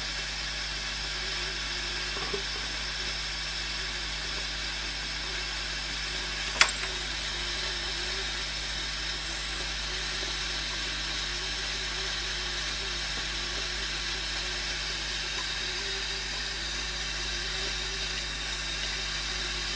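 Steady hiss with a low hum underneath, and a single sharp click about six and a half seconds in.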